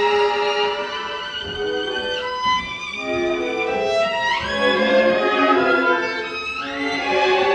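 Solo violin playing with a symphony orchestra: held notes and shifting chords, broken by three quick rising sweeps spread through the passage.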